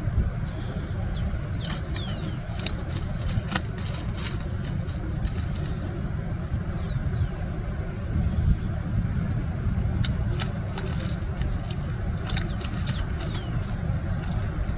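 A steady low rumble runs throughout, with short, high, downward-sweeping bird chirps several times over it and a few sharp clicks or knocks.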